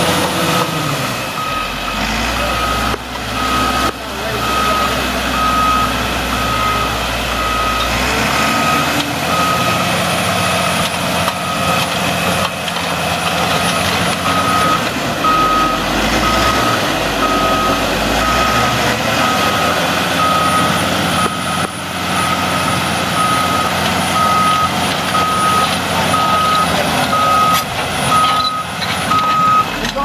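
A heavy machine's reversing alarm beeping about twice a second, pausing for a few seconds midway, over the loud steady noise of the machine's engine running.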